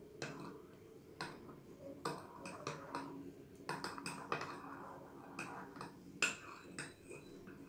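Metal spoon stirring frothy milk coffee in a ceramic mug: faint, irregular clinks and scrapes of the spoon against the mug's sides.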